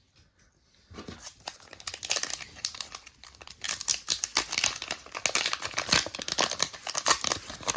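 Foil wrapper of a trading-card booster pack crinkling and crackling as it is handled, starting about a second in.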